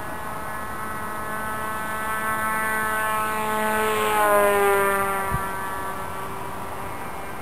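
Propeller and motor of a 600 Mini Pop radio-controlled model aeroplane making a flyby: a buzzing whine that grows louder and then drops in pitch as the plane passes, about four to five seconds in, before fading away. A short knock follows just after the pass.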